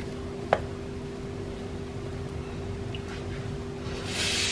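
Quiet kitchen handling sounds as spices are added to flour in a glass mixing bowl: one light click about half a second in and a short rustling hiss near the end, over a steady low hum.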